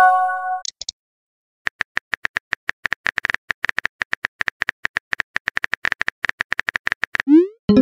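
Phone on-screen keyboard tap sounds: a long, fast run of light clicks as a text message is typed. A short multi-note notification chime rings at the start, and a quick rising whoosh near the end marks the message being sent.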